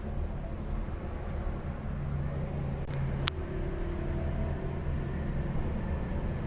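Steady low background rumble and hum, with two brief clicks about three seconds in.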